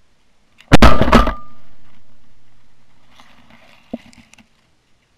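Two shotgun blasts about half a second apart at a flying duck, the second a little softer, with the report echoing away over a couple of seconds. A single sharp click follows about three seconds later.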